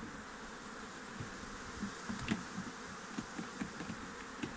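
Honeybees buzzing around an opened hive: many short buzzes of single bees close by over a steady hum, with a few light knocks.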